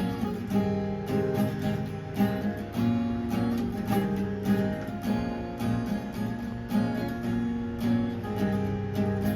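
Acoustic guitar played in a steady rhythm, chords struck several times a second, with no singing.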